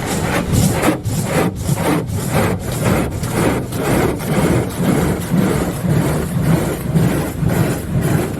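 Water jets of a Crossfire in-bay automatic car wash spraying over a car in a steady pulsing rhythm, about two surges a second, with a low rumble underneath. The nozzles are partly clogged, though the machine still washes well.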